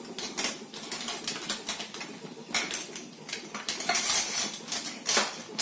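Whole spices (cinnamon, cloves and cardamom) sizzling in hot oil in a kadai: a steady hiss with irregular crackling. A few louder clicks come from a spice container being handled.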